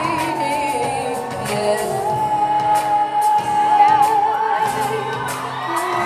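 A female pop vocalist singing live over acoustic guitar accompaniment. Her voice slides down, then holds one long note for a few seconds.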